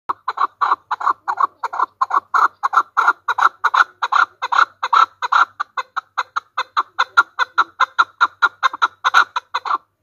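Chukar partridge calling: a long, even run of short, repeated notes, about three a second.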